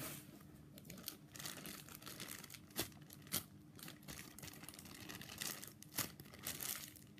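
Clear plastic packaging bag crinkling and rustling as it is handled, with a few sharp crackles.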